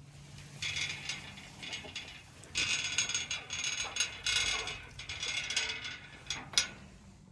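Old rusty iron gate being swung, its hinges grinding in four ratchety strokes, followed by a couple of sharp metal clicks near the end.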